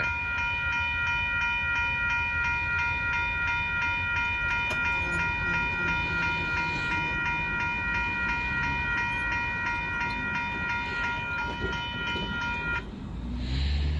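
Railroad grade-crossing warning bell ringing in fast, even strokes over the low rumble of the train. The bell cuts off abruptly near the end as the crossing clears, and a road vehicle's low engine rumble rises right after.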